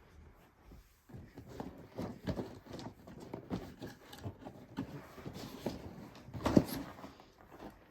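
Hands handling a train set's box and packaging: irregular knocks, scrapes and rustles, with the loudest knock about six and a half seconds in.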